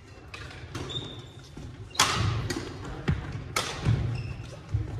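Badminton rally: several sharp, echoing racket hits on the shuttlecock, the loudest about two seconds in, with brief sneaker squeaks on the wooden court floor.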